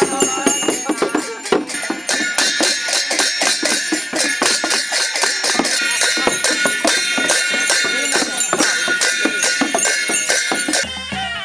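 Dhami-jhankri ritual dance music: shamans' handled frame drums (dhyangro) beaten in a fast, even beat, with brass hand cymbals clashing and bells jingling over it. Just before the end it cuts to the reed pipe and drums of a panche baja band.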